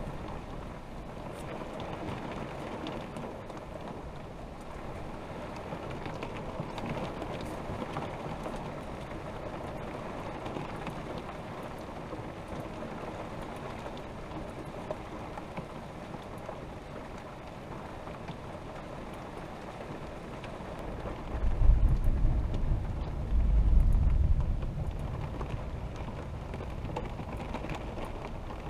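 Steady rain falling on an RV, heard from inside the cab. About two-thirds of the way in, a low rumble of thunder swells twice over some four seconds, louder than the rain, then fades.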